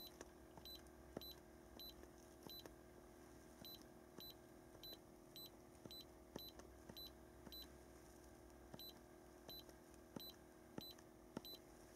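iCarsoft i960 handheld scan tool beeping once per key press as its button is pressed repeatedly to scroll down its module list: short high beeps, each with a faint click, at uneven intervals of about half a second.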